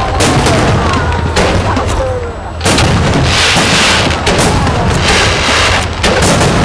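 Aerial firework shells bursting overhead in a dense barrage of bangs one after another, with a short lull about two and a half seconds in.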